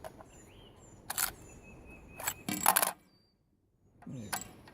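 Sharp metallic clacks and rattles of an M16 rifle's action being worked by hand, with a strong clack about a second in and a quick run of them toward three seconds. This is the rifle being cleared of a double feed.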